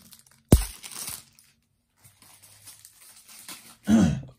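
Plastic trading-card pack wrapper crinkling and tearing as a card pack is handled and opened, with a sharp thump about half a second in and a short louder burst near the end.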